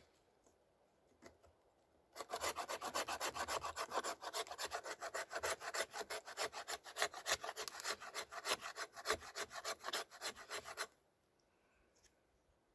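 The 90-degree spine of a Becker BK9 knife scraping a stick of fatwood in rapid, even back-and-forth strokes, shaving off fine scrapings for tinder. The scraping starts about two seconds in and stops shortly before the end.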